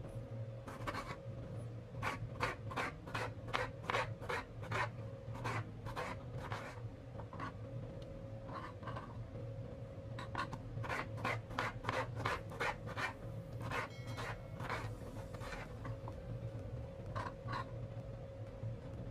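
Kitchen knife cutting a tomato on a plastic cutting board, short sharp strokes about three a second in two runs with a pause between. A steady low hum runs underneath.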